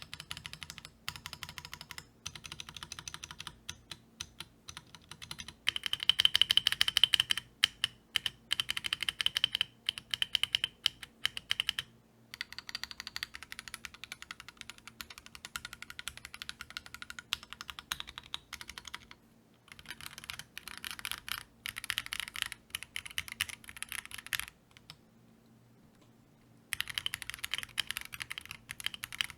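Typing on an Akko MOD005 gasket-mounted mechanical keyboard: fast runs of keystrokes with a few short breaks and one longer pause about three-quarters of the way through.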